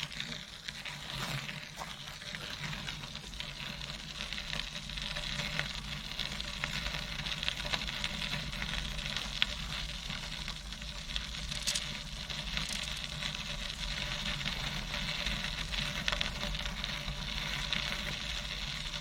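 Tandem bicycle tyres rolling over a gravel trail: a steady crunching hiss full of small clicks, with a low rumble underneath.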